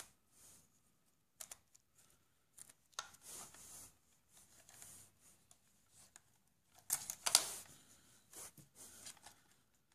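Faint plastic clicks, scrapes and rubbing as hands work the steering servo and its metal linkage rod loose from a toy RC car's plastic chassis, with the loudest rattle of clicks about seven seconds in.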